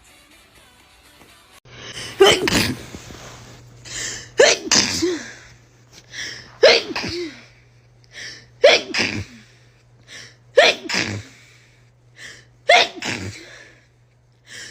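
A girl sneezing six times in a row, starting about two seconds in, with one sneeze about every two seconds. Each sneeze comes after a short, quieter intake of breath.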